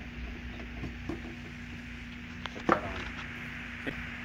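A screwdriver and a small plastic electronic lock being handled and set down on a plywood tabletop: a few light clicks and taps, with one sharper knock about two and a half seconds in. A steady low hum runs underneath.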